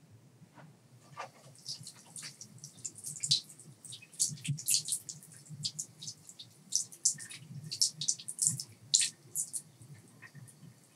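Water from a tap splashing irregularly into a bathroom sink, in quick, uneven spatters that pick up about two seconds in.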